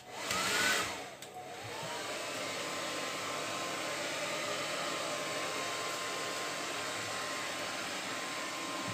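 Hand-held hair dryer blowing, with a louder rush in the first second. Its motor whine then rises into a steady pitch, and the airflow runs evenly from there on.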